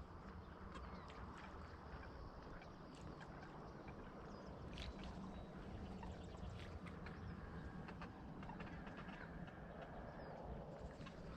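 Faint duck quacks, several short calls scattered through, over a steady low rumble.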